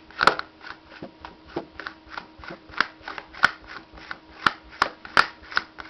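Head of a Maglite D-cell flashlight being unscrewed by hand: a steady run of short dry scraping clicks, about three a second.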